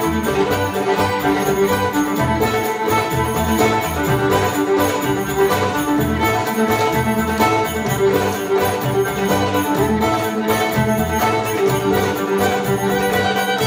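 Live Middle Eastern-style acoustic music: a violin carries the melody over mandolin and bass, with a dumbek beat and steady metallic jingling on top.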